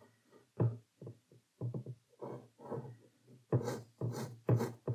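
Pencil strokes on rough watercolour paper: about a dozen short scratchy strokes, the loudest three near the end.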